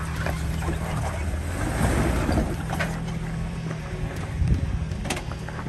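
Jeep Wrangler engine running steadily at low crawl speed under load while climbing a rock slab, with wind on the microphone. A louder scrabbling swell comes about two seconds in, and there are a few sharp clicks later.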